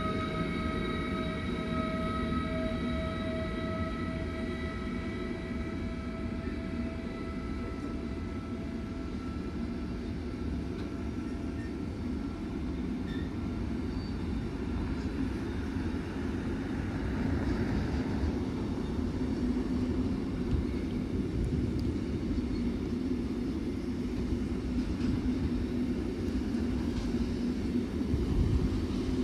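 Long freight train of container and tank wagons rolling past at steady speed, a continuous rumble of wheels on rail. An electric locomotive's whine of several steady high tones fades out over the first few seconds as the locomotive draws away.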